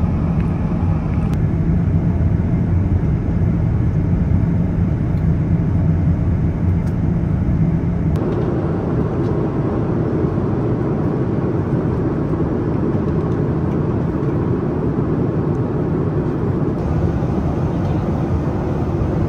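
Steady cabin noise of an Airbus A330-900neo airliner in flight: a constant rumble of airflow and engines. About eight seconds in, the sound shifts to less low rumble and more hiss.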